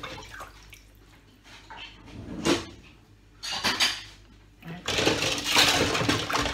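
Washing up at a kitchen sink: a sharp clatter of dishes about two and a half seconds in, then bursts of running tap water, the longest near the end.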